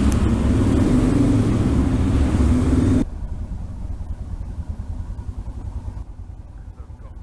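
A Royal Enfield Himalayan's single-cylinder engine runs as the motorcycle rides along, with a loud, steady drone. About three seconds in it drops abruptly to a much quieter low rumble, and it settles lower still near the end as the bike idles at a stop.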